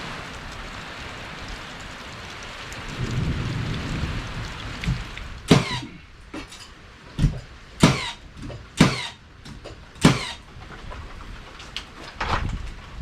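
Steady hiss of rain, then a series of about six sharp knocks or snaps spaced roughly a second apart, loud against the rain, as panels and parts are fitted back in place.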